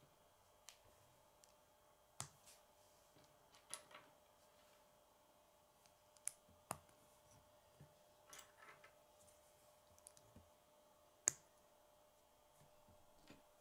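K'nex plastic rods and connectors clicking as they are handled and snapped together: scattered sharp, irregular clicks, the loudest a little after eleven seconds in.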